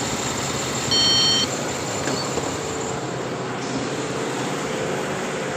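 2007 GMC Yukon V8 engine running steadily at idle with a misfire, which the scan data puts on cylinders 2 and 7. A short electronic beep sounds once, about a second in.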